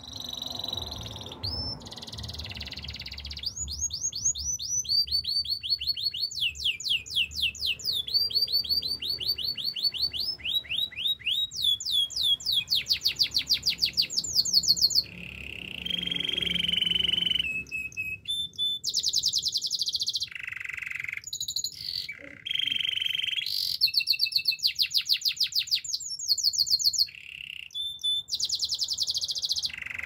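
White domestic canary singing a continuous song of fast trills, each a rapid string of repeated high notes, switching to a new trill every second or two, with a few held whistled notes between.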